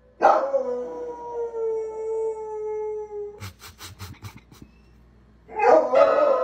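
Dog howling: one long howl of about three seconds that slides slightly lower, then a quick run of sharp clicks, then a second howl starting near the end.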